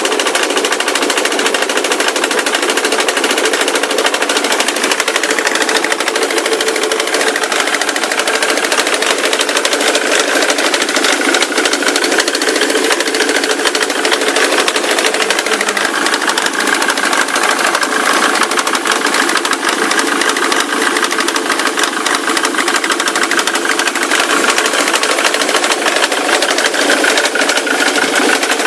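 Ford Mondeo Mk3 turbo-diesel engine running steadily with a loud, rapid knock. The owner finds the knock puzzling and hears it coming from the left side of the engine, where the timing chain is.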